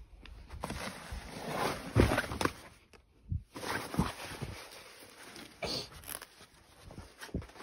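Clothes and motocross riding gear being handled and rustled, with several short dull thumps.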